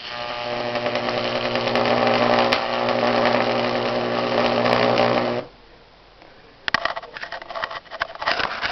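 High-voltage arc from a microwave oven transformer burning between aluminium electrodes: a loud, steady electrical buzz that cuts off suddenly about five seconds in. After a short pause, irregular crackles and snaps follow near the end.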